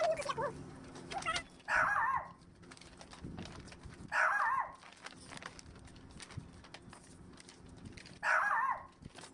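A short animal cry, three times, each about half a second long, over a faint steady hum.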